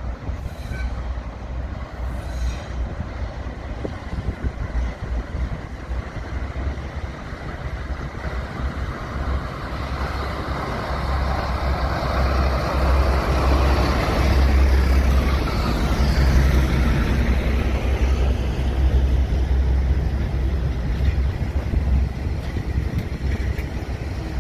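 Diesel locomotive convoy, Class 52 diesel-hydraulic D1015 with two Class 20s, running by. A deep, steady engine rumble grows louder to a peak about halfway through, then eases off.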